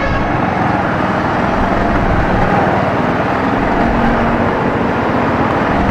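Steady running of a motorcycle engine at low speed in slow city traffic, with the hum of surrounding vehicles, heard from the bike.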